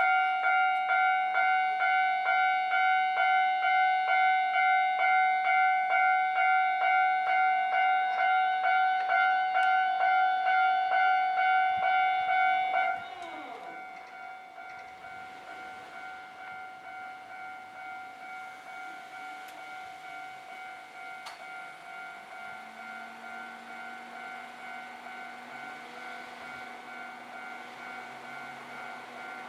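Electronic level-crossing warning bell ringing at a steady rapid beat of about two strikes a second. About 13 seconds in it suddenly drops to a much lower volume and keeps ringing. Near the end a low steady hum comes in under it.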